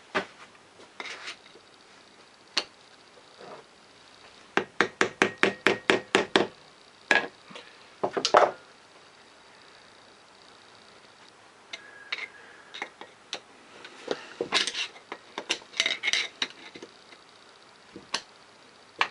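Hand tools working metal parts of a Lister D engine's governor assembly: a quick run of about a dozen light metal-on-metal taps, roughly six a second, about four to six seconds in, a few heavier knocks after it, then scattered clinks and scrapes. It is the sound of a stubborn, misaligned pin being tapped and levered to drive it through.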